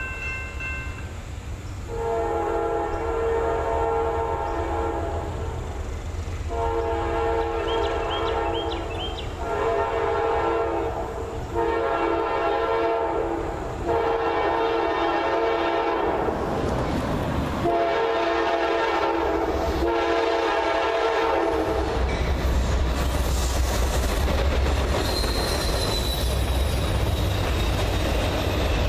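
Freight locomotive horn blowing a series of long and short blasts for a grade crossing, the last blast long, with a crossing signal ringing briefly at the start. Then the train passes: freight cars roll by with a steady rumble and clickety-clack of wheels on rail joints, and a brief wheel squeal.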